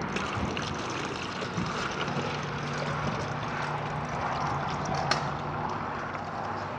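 Homemade toilet being flushed, water rushing and gurgling through the bowl and its drain pipe as a steady noise, with a low hum underneath.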